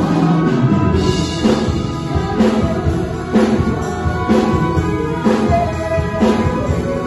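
Live orchestra playing a pop-style arrangement, with drums marking strong beats about once a second under sustained string and band parts.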